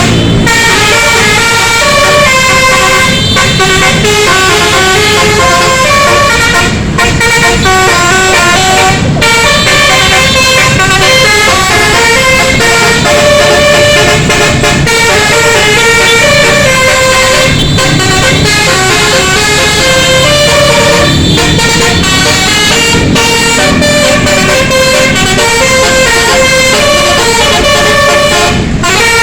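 Multi-tone telolet bus horn playing a running melody of quick stepping notes, loud and nearly continuous, cutting out briefly a few times.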